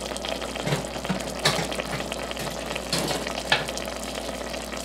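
Pot of soy mince stew with potato and carrot sizzling and bubbling on the stove, its liquid cooked down, with a few light clicks through it.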